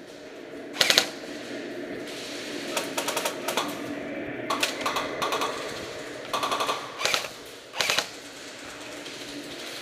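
Airsoft electric guns firing short full-auto bursts, each a quick rattle of rapid shots, about six bursts in all. The loudest come about a second in and near the end.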